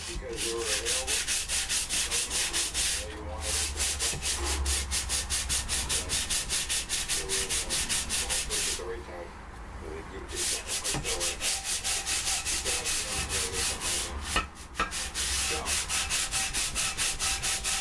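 A flat abrasive stone rubbed in quick, even back-and-forth strokes across the cast-iron top face of an Austin A-series 1098cc engine block. The stroking pauses about nine seconds in, and there is a single sharp knock near fifteen seconds.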